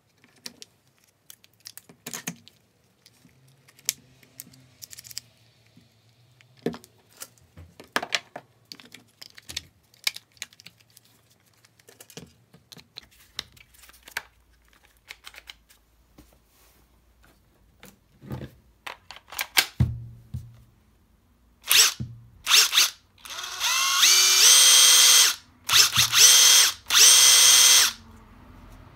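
Plastic clicks and knocks as the Makita 40Vmax TD001G impact driver's connectors and housing are fitted together, then its brushless motor is run free in short trigger bursts and longer stretches, the pitch stepping up as it speeds up. The tool still has a faulty trigger switch.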